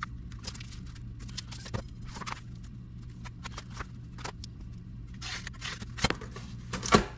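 Pencil marking and cardboard being handled and slid on a workbench, heard as scattered short scratches and scrapes. A square steel bar used as a straightedge is set down and moved, giving two louder knocks about six and seven seconds in. A steady low hum runs underneath.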